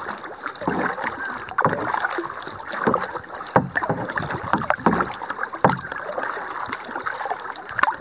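Paddling an Old Town Discovery 119 canoe: repeated paddle strokes swishing and splashing in the water, with a few sharp knocks.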